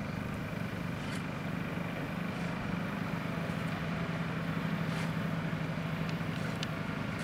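A steady, low engine hum, like a motor running at idle.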